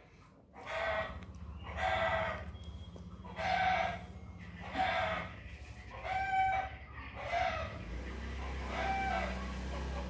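Domestic cat meowing over and over: about seven short meows, roughly one a second or so.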